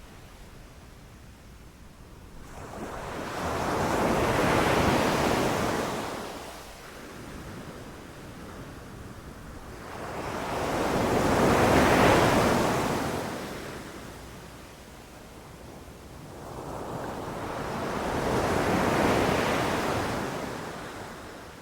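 Ocean surf breaking on a beach: three waves swell and wash in and fade away, about seven seconds apart, the middle one the loudest.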